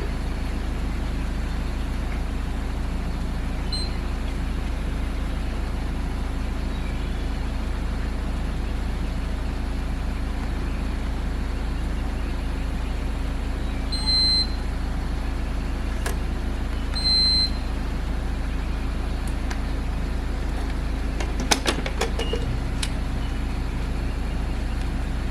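Steady low hum of a car idling. Two short electronic beeps come a few seconds apart midway, from a gas pump's keypad being pressed. A few light clicks follow near the end.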